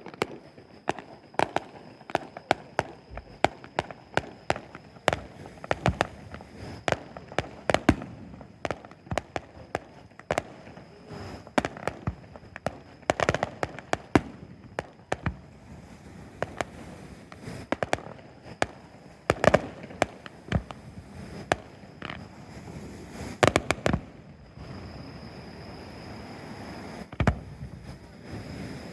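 Fireworks display: many shells bursting in sharp bangs at irregular intervals, sometimes several in quick succession, thinning out near the end.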